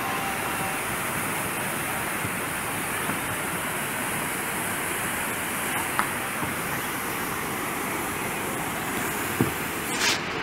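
Whitewater rapids rushing steadily through the concrete channel of a canoe slalom course, an even, unbroken noise of churning water. A few brief clicks are heard late on.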